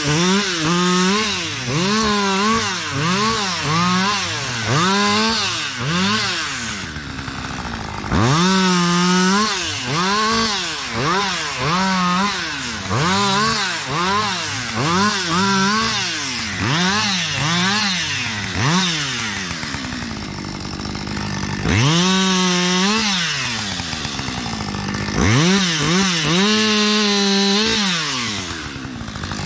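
Two-stroke chainsaw limbing a felled birch, the engine revved up and down in quick bursts about once a second as it bites through branches. It drops back to a steady idle for a second or two several times between runs of cuts.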